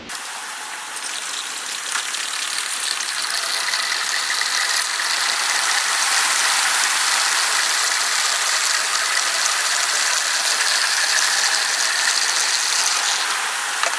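Gasoline pouring from a plastic gas can into a portable generator's fuel tank: a steady rushing hiss that grows louder over the first few seconds as the tank fills.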